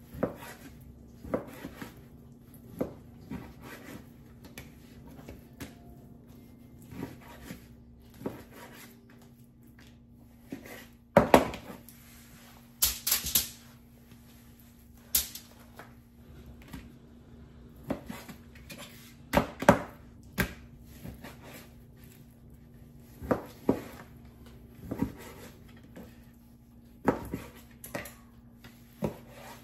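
Knife cutting raw chicken breast on a plastic cutting board: sharp single taps of the blade striking the board every second or two, with a louder cluster of knocks and clatter about eleven to thirteen seconds in. A steady low hum runs underneath.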